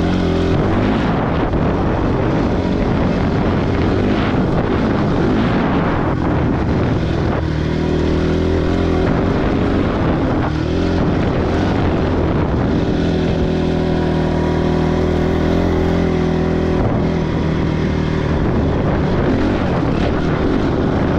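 Dirt bike engine running under load on a trail, its revs rising and falling with throttle changes and shifts a few times along the way.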